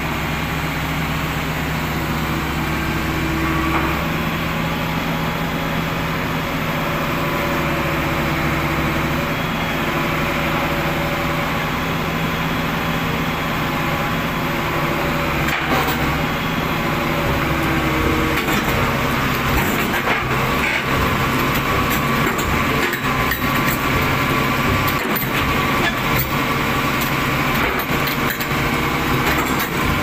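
Heavy diesel engine running steadily at low speed, with short metallic clanks and knocks coming more often in the second half.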